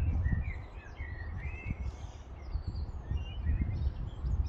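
Small birds chirping in short, quick phrases over a loud, uneven low rumble of wind buffeting the microphone.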